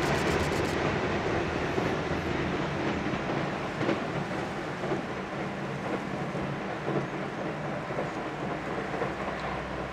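JR 311 series electric multiple unit running away across a steel girder railway bridge, its rolling rumble fading steadily, with a few faint wheel clicks over rail joints as it recedes.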